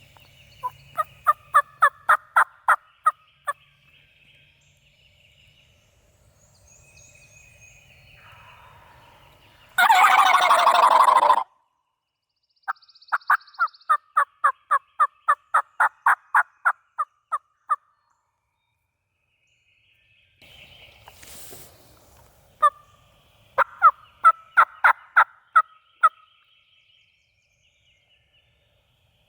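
Turkey yelping in three runs of evenly spaced yelps, about three to four a second, with one loud gobble lasting about a second and a half about ten seconds in. Small birds chirp faintly between the calls.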